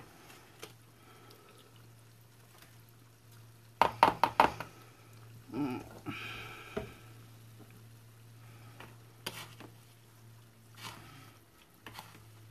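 Doughnuts deep-frying in a pan of hot oil with a faint sizzle, while a metal slotted spatula knocks and scrapes against the frying pan, loudest in a quick run of knocks about four seconds in.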